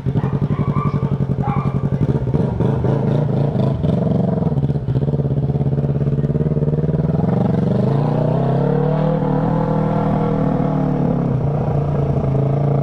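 Straight-piped Yamaha MT-03 parallel-twin engine with its muffler removed, pulling away at low revs with a pulsing exhaust note, then running steadily; about eight seconds in the revs rise and ease off again.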